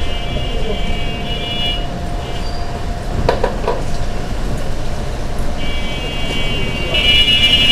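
Street traffic rumbling, with vehicle horns sounding at the start and again in the last two seconds, and a couple of short knocks about three seconds in.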